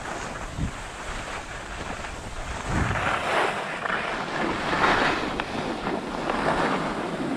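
Skis sliding and scraping over packed snow, a rough hiss that swells louder about three, five and six and a half seconds in, with wind buffeting the microphone.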